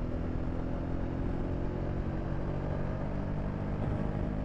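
Parallel-twin engine of a BMW F850 GS Adventure motorcycle running steadily while riding, with wind and road rush over it.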